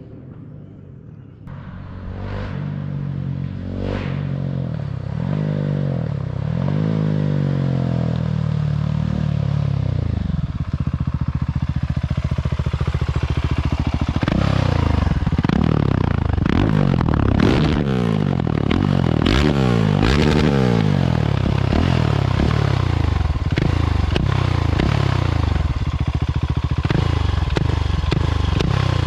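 KTM 690 SMC R single-cylinder engine running through an Arrow exhaust with its dB killer removed. It is revved in rising and falling throttle blips, and from about halfway on it is held against the rev limiter, bouncing up and down rapidly and repeatedly.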